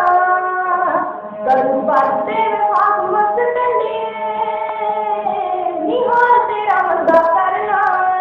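A young woman singing a Punjabi song solo, in long held phrases that glide up and down in pitch, played back from a video recording.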